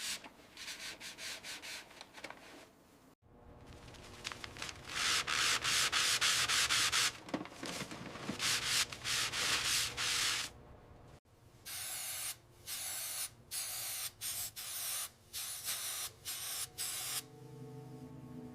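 Repeated rubbing or sanding strokes on a surface: runs of quick back-and-forth strokes, with one longer unbroken rub about five seconds in, then slower strokes of about two a second later on.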